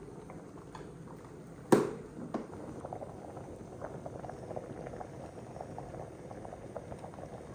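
Rice boiling hard in salted water in a stainless steel pot, a steady bubbling with small pops throughout. One sharp tap about two seconds in is the loudest sound.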